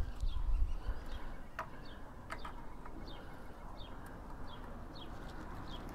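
A small bird calling over and over: a short, high, falling chirp about every two-thirds of a second. A couple of sharp clicks come in the first half, and a low rumble at the very start.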